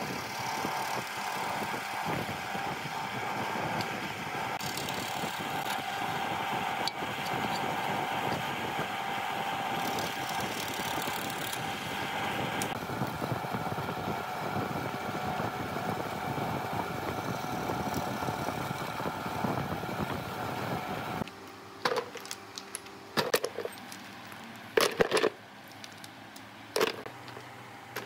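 A bench drill press running steadily as its twist bit bores into a wooden block, throwing up chips. About three-quarters of the way through the drilling stops, followed by a string of sharp wooden clacks as the drilled blocks are dropped into a plastic bucket.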